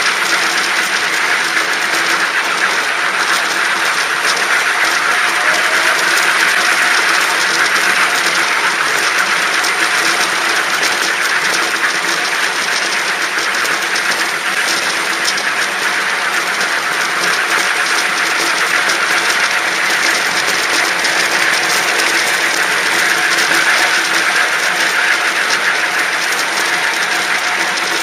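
A park-railway train running along the track: a steady mechanical running noise with fast, even clicking throughout.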